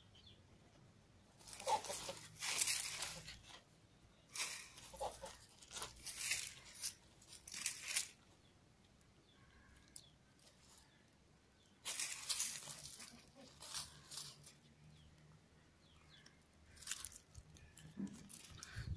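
A dog chewing and crunching on a lizard, in several bouts of crunches with short pauses between.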